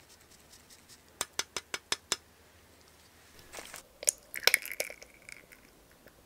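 Cheese being grated on a fine rasp grater, six quick light ticks about a second in. Around the middle, ketchup squeezed from a bottle into a small cup gives a short, irregular run of squelching noises.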